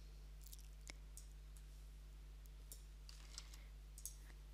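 Faint, irregular clicks of a computer keyboard and mouse while a domain name is typed into a web form, over a steady low electrical hum.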